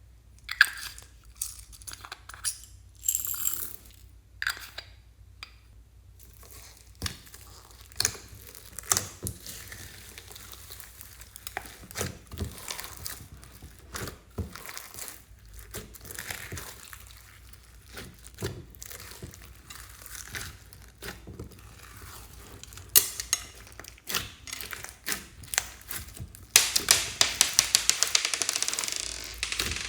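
Slime being mixed and worked by hand, giving scattered sticky clicks and crackling pops. A fast, dense run of clicks comes near the end and is the loudest part.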